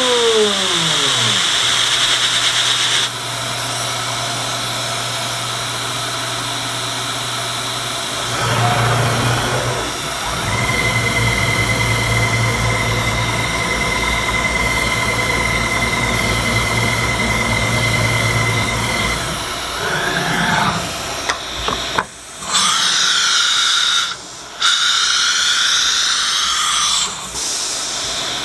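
CNC router's HSD 10 hp spindle milling 6061 aluminium plate with a double-spiral end mill, a steady machining whine over the hiss of the oil mister, with a falling tone right at the start. In the last several seconds the cutting stops, the pitch glides and the sound breaks off briefly twice as the machine moves to its tool rack for a bit change.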